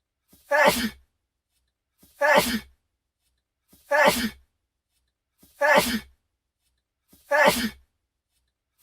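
A man's sneeze repeated five times, evenly, about every 1.7 seconds; each copy is identical, a single recording looped, with a faint lead-in just before each sneeze.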